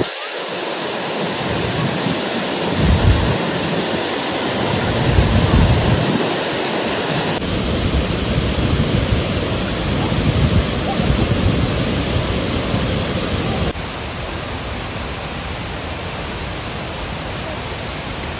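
Steady rushing of a waterfall, with irregular low rumbles in the first several seconds. The sound changes abruptly twice and is a little quieter over the last few seconds.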